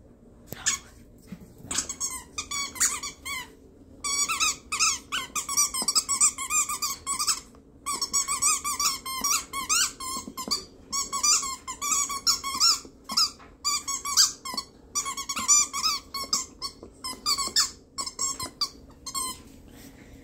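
Red rubber squeaky ball squeaking over and over as a puppy chews on it, in quick runs of short squeaks with brief pauses, starting about two seconds in.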